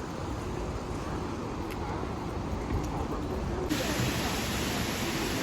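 Steady rushing noise of traffic and the outdoors, with faint voices of people in the background. About two thirds of the way in the sound cuts abruptly to a brighter, fuller rush of falling water from Multnomah Falls.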